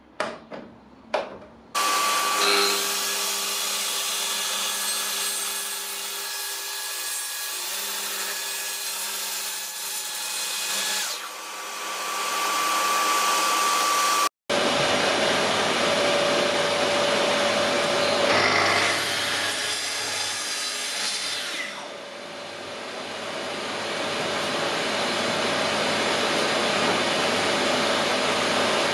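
Festool TS 55 REBQ plunge track saw running with its dust extraction hose attached, making a steady whine and rush of air as it crosscuts a board along its guide rail. A few sharp clicks come just before it starts.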